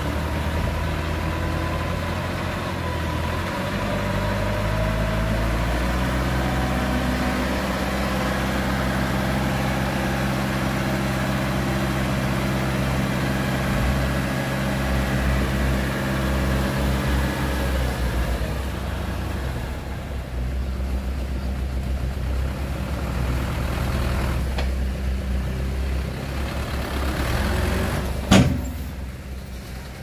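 Hyundai dump truck's diesel engine running while it raises its tipper bed and dumps a load of soil. The engine note steps up a few seconds in, holds, and drops back after about eighteen seconds. A single sharp bang comes near the end.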